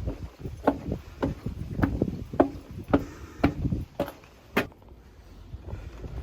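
A series of sharp, evenly spaced knocks, about two a second, stopping a little after four seconds in, over a low wind rumble on the microphone.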